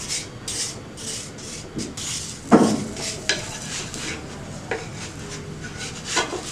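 Wooden spatula scraping and rubbing across a nonstick tawa in short strokes while spreading ghee over a paratha, with a loud knock of the spatula on the pan about two and a half seconds in and a few lighter taps later.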